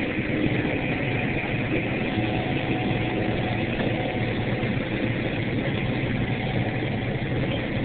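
John Deere 9760 STS combine running steadily under harvest load, heard from inside the cab as an even engine and machinery drone.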